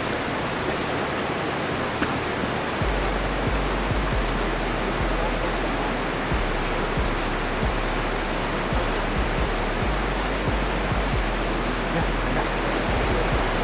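Steady rush of river water, with background music under it whose deep bass comes in about three seconds in.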